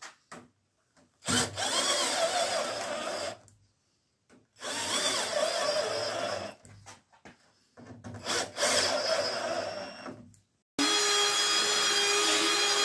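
Cordless drill-driver driving screws into plywood panels, in three runs of about two seconds each, its motor pitch wavering as each screw goes in. Near the end another power tool starts and runs steadily on the plywood.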